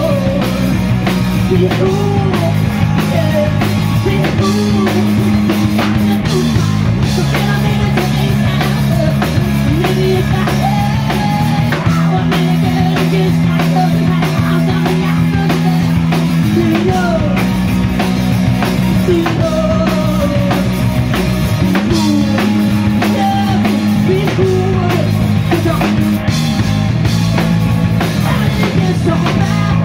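Live rock band playing loud: a singer's voice over electric bass, electric guitar and a drum kit.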